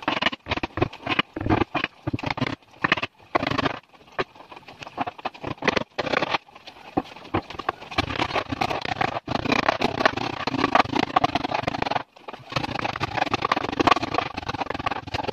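Hand work on wood: a rapid, irregular run of knocks and scrapes, most tightly packed between about eight and twelve seconds in, with short pauses.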